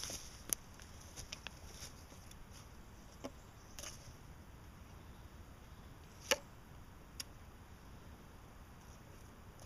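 Scattered short clicks and ticks over a quiet background, the loudest about six seconds in, as a metal detector's search coil is swept over loose soil and dry leaf litter.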